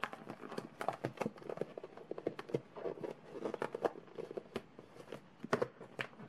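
Clear plastic pouch being handled, crinkling and rustling with many light, irregular clicks and taps.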